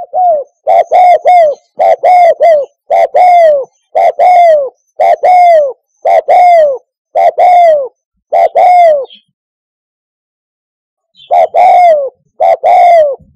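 Spotted dove cooing loudly: phrases of short coos, each ending in a longer falling note, repeated about once a second, with a pause of about two seconds near the end.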